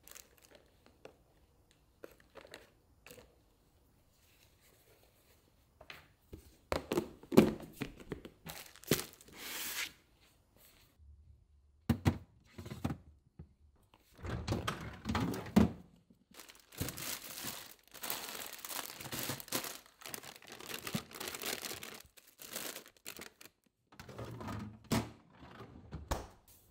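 Plastic food packaging crinkling and tearing in bursts, with occasional knocks as containers are handled and set down.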